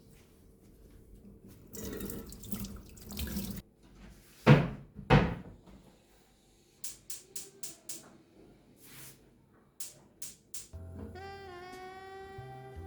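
Tap water running into a kitchen sink for a second or two, then two loud knocks and a quick run of clicks. Background music starts near the end.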